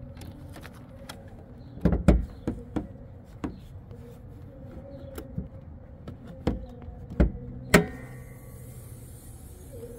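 Car hood being opened on a 2019 Lexus ES300h: a run of knocks and clicks, loudest about two seconds in, then a sharp click of the hood's safety latch near the end, followed by a faint hiss.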